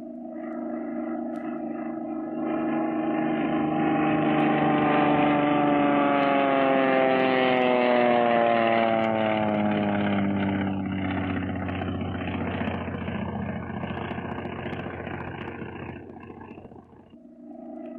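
Single-engine propeller airplane circling overhead. The engine drone builds to a peak as the plane approaches, then drops in pitch as it passes and fades somewhat. Just before the end it dips briefly and returns.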